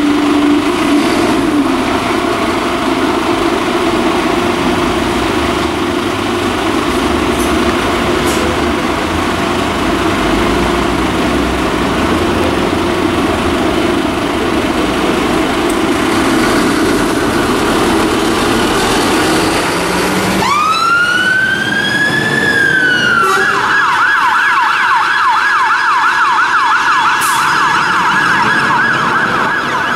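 Scania P280 fire engine's diesel engine running as it pulls out. About two-thirds of the way in, its two-tone-style electronic siren starts with one rising wail, then switches to a fast repeating yelp.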